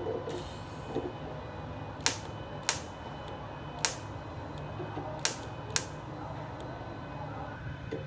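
Steady low hum of a small inverter welding machine, with five or six sharp metallic clicks at irregular intervals from stainless workpieces and tools being handled.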